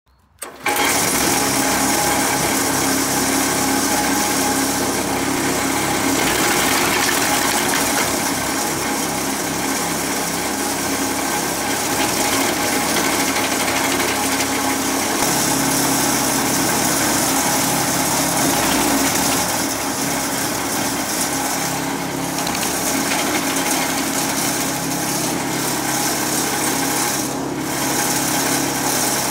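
Remet RS80 branch logger's petrol engine running steadily, with branches being fed in and cut up. The engine note changes about halfway through.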